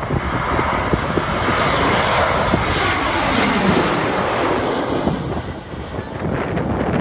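Boeing 737-800 jet airliner's CFM56 turbofan engines on landing approach passing low overhead: a jet rumble and whine that swells to a peak about halfway through, then drops in pitch and eases as the aircraft goes by.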